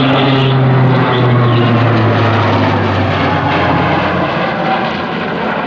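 Alenia C-27J Spartan's twin turboprop engines and propellers running at display power, a loud, steady drone with a low propeller hum that drops in pitch over the first few seconds as the aircraft flies past.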